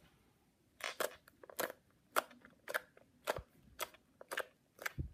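Slime being squeezed and pressed by hand, giving sharp sticky clicks and pops about twice a second.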